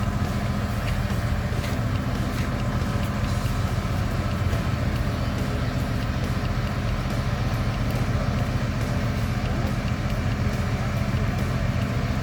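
An engine running steadily at a constant speed, a low, even drone with no revving.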